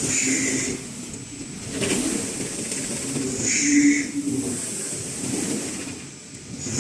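Horizontal CNC V-grooving machine running, its cutting carriage working in a repeating cycle about every three and a half seconds, each pass bringing a hissing burst over a steady mechanical hum.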